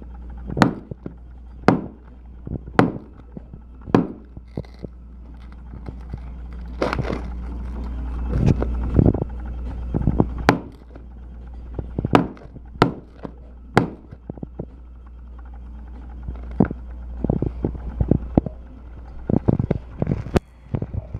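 Firecrackers and fireworks going off: a string of sharp bangs, about one a second at first, then irregular, with quick crackling clusters near the end, over a steady low rumble.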